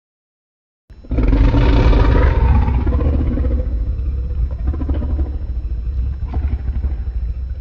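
Godzilla growl sound effect: a deep, rumbling monster growl that starts suddenly about a second in and slowly weakens.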